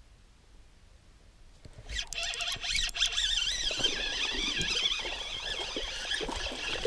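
Spinning reel being cranked, a wavering whir with clicks that starts about two seconds in, as a hooked bass is reeled in.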